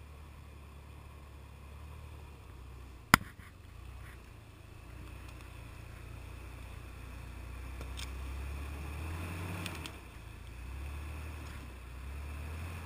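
Jeep Wrangler's engine running at low revs as it crawls over rocks, pulling harder and louder past the middle, easing briefly, then rising again near the end. A single sharp crack about three seconds in is the loudest sound.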